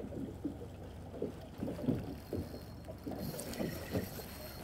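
Choppy water lapping and slapping against the hull of a small open motor boat in irregular low splashes, with a faint high hiss joining about three seconds in.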